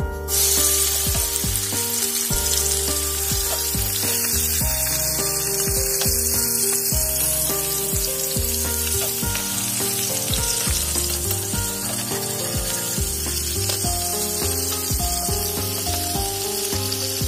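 Snakehead fish steaks sizzling steadily as they fry in hot oil in a metal kadai, the sizzle starting about half a second in. Background music plays along with it.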